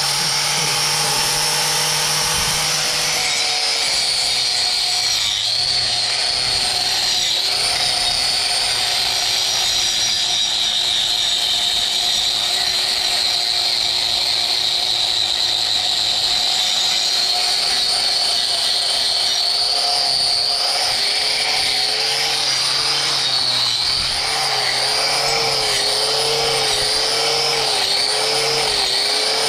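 Electric angle grinder with a hoof-trimming disc running at speed on a cow's hoof. Its whine sags a few times about five to eight seconds in, then dips roughly once a second near the end as it is pressed into the horn in short strokes.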